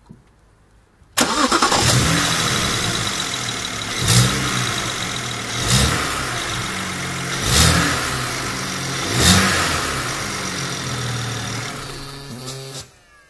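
BMW N54 twin-turbo straight-six starting about a second in, idling with four quick throttle blips, then shut off abruptly near the end.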